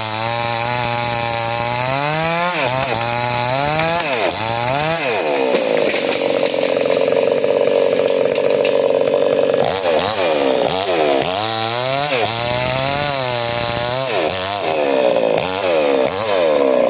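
Chainsaw engine revving up and down over and over, held at high revs for about four seconds in the middle, then blipped in quicker rises and falls near the end.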